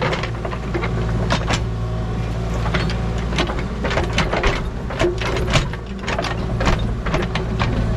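Engine of a piece of earthmoving equipment running steadily, with frequent sharp clanks and knocks on top, as of a machine backfilling the tank hole.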